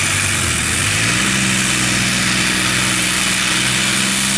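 Engines of a modified tractor-pulling tractor running at the start line, speed stepping up about a second in and then holding steady, with a strong hiss over the top.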